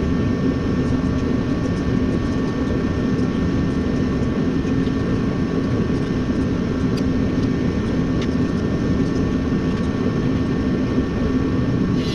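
Steady, even machine drone with a few constant faint tones over it, holding level throughout with no separate tool strokes.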